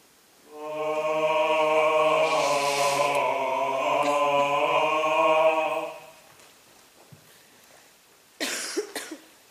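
Several voices singing one held, wordless chord for about five seconds, the pitches wavering slightly. Near the end comes a short, breathy noise.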